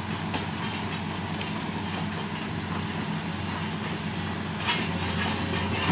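L&T Komatsu PC200 hydraulic excavator's diesel engine running steadily, with intermittent metallic clinks and clanks that come more often near the end.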